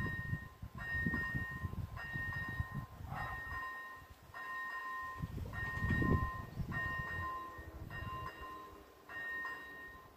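Level-crossing warning bell, electronic, sounding a repeated ringing tone about once a second while the barrier arms lower. A low rumble swells briefly about six seconds in.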